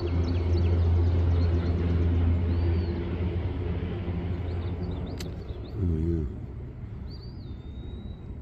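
A vehicle engine idling with a steady low hum that fades away over the first six seconds. Birds chirp in the background.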